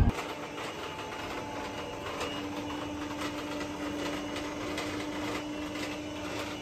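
Robot vacuum cleaner running: a steady mechanical whir with faint ticking, and a steady hum that comes in about two seconds in.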